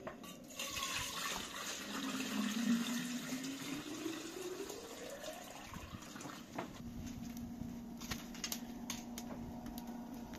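Water poured from a plastic jug into a tall black metal kettle, the pitch rising steadily as the kettle fills until the pour stops about six seconds in. A few sharp clicks follow near the end.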